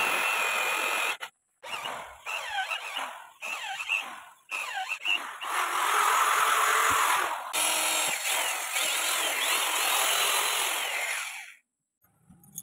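A power tool cutting material, with a squealing edge to it, heard in several short clips that start and stop abruptly. It falls silent near the end.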